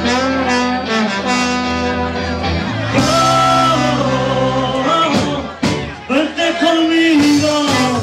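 Live band playing an instrumental passage, with a trombone over electric guitars.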